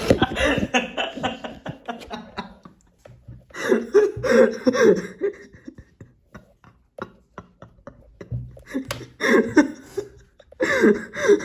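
A girl's voice laughing hysterically in wheezing fits: several bursts of quick, pulsing laughter separated by short breathless pauses.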